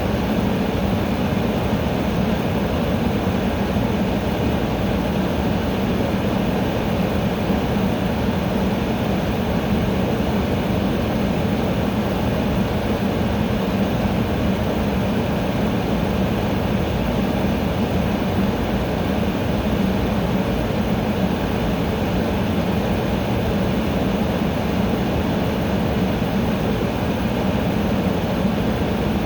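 Air conditioner running: a steady, even hum and rush of air, strongest in the low range, with no change in level.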